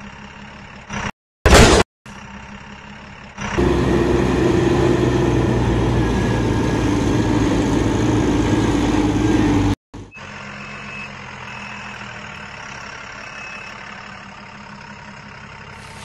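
Truck engine running steadily, broken by abrupt cuts: a short loud burst about a second and a half in, a louder stretch from about three and a half seconds to ten seconds, then a quieter run with a few short, high reversing-style beeps.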